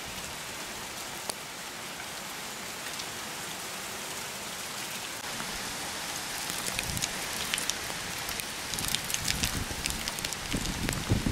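Heavy rain mixed with small hail, a steady hiss with sharp ticks of drops and hailstones striking pavement and leaves, the ticks coming thicker in the second half. A few dull low bumps near the end.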